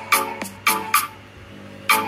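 Music with a steady beat: sharp percussive hits with pitched notes, roughly two to three a second.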